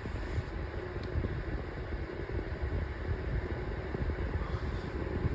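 Five-bladed 12-inch metal table fan running steadily on low speed: an even hum of the motor and the rush of air from the blades.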